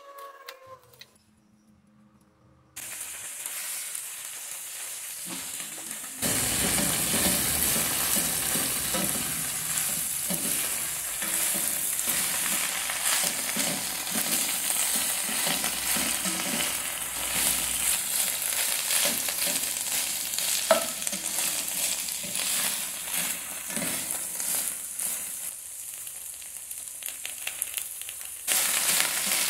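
Torn cabbage leaves with chili stir-frying in a hot oiled pan: steady crackling sizzle with the rustle and scrape of a spatula turning the leaves. It starts after a near-quiet moment a few seconds in, gets louder about six seconds in, and eases a little before picking up again near the end.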